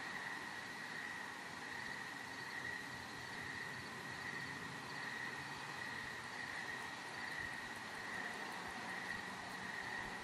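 Night insects singing in a steady, unbroken high-pitched chorus over a light hiss.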